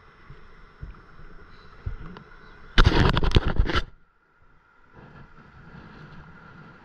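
Hand rubbing and bumping against the camera, a loud scraping rustle lasting about a second near the middle, over faint wind and water noise with a few small knocks.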